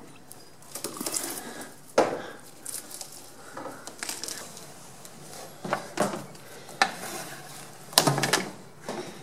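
Old windshield rubber weatherstrip being pulled and torn out by hand around the glass of a squarebody Chevy Suburban: irregular scraping and crackling with a few sharp knocks, the loudest near the end.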